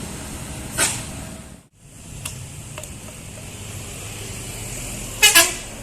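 Tour bus engine rumbling as it passes, with two short horn blasts, one about a second in and a louder one near the end. The sound drops out briefly just before two seconds in.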